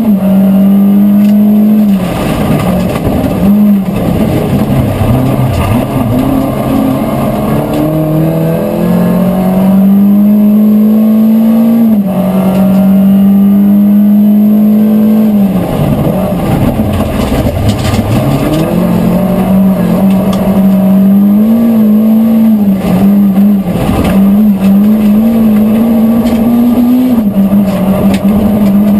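Volvo 940 Group H rally car's engine at high revs, heard from inside the cabin, pulling hard and climbing through the gears. The revs drop sharply about two seconds in and again midway, where they fall deep before building again, with short dips from quick shifts near the end. Knocks and rattles from the gravel road come through the body.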